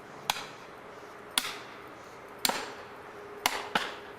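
Sharp hammer blows driving a felling wedge into the back cut of a tree, five strikes about a second apart, the last two in quick succession.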